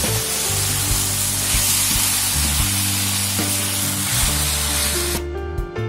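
Vegetable noodles sizzling in a hot non-stick kadai as they are stir-fried with a wooden spatula, over background music with low held notes. The sizzling stops about five seconds in.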